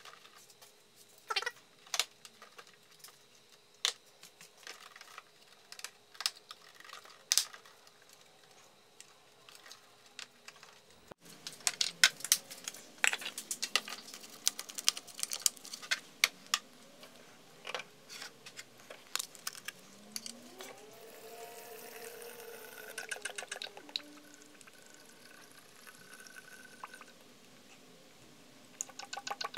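Scattered plastic clicks and knocks as the air intake housing is fitted. Then fresh engine oil is poured from a bottle through a funnel into the engine's oil filler, with clicks and taps and a pour that rises in pitch about twenty seconds in: the engine being refilled after an oil pan gasket replacement.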